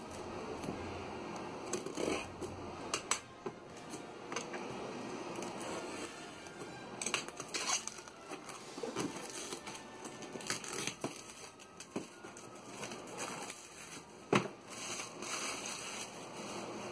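Plastic shrink-wrap being torn and pulled off a cardboard model-kit box, with crinkling and rustling and scattered sharp clicks and taps of hands on the box.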